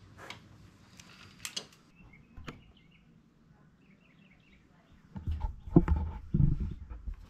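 A few light metallic clicks from hand work on the motorcycle engine, then, about five seconds in, a couple of seconds of loud, uneven rubbing and bumping close to the microphone as the hand-held camera is moved.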